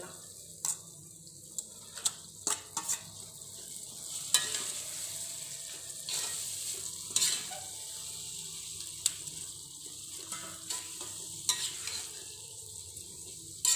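Marinated mutton frying with onions and tomato in a kadai, sizzling as a metal slotted spoon stirs it, with frequent sharp clicks and scrapes of the spoon against the pan. The sizzling grows louder about four seconds in.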